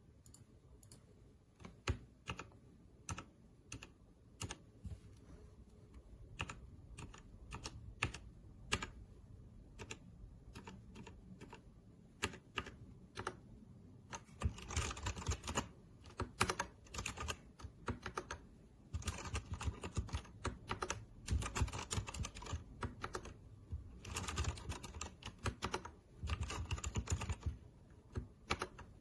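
Typing on an RK Royal Kludge RK61 60% mechanical keyboard, its keys clicking. For about the first half the presses are scattered single keystrokes. From about halfway on come runs of fast, continuous typing.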